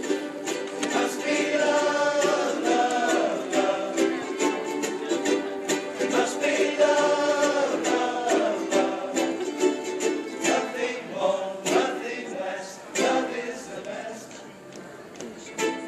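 A group of ukuleles strumming chords together, with several voices singing the melody along with them.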